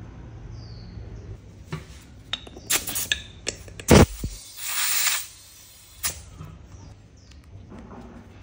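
Workshop handling sounds: a run of hard clicks and clinks, a loud knock about four seconds in, then a short hiss lasting under a second and one more click.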